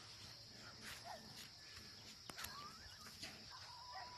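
Faint open-air ambience: a steady high hiss with scattered short bird chirps and thin whistles, and a few light clicks.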